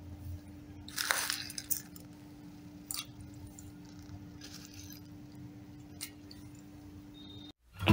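Steel spoon clinking against a stainless steel bowl as fried boondi is spooned into the pani, with a short wet rustle about a second in and a few light clinks after. A steady faint hum runs underneath.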